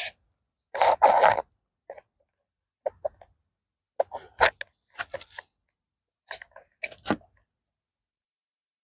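Scattered short crunches and scrapes of moist garden soil being dug and handled while seedlings are transplanted, with a longer scrape about a second in.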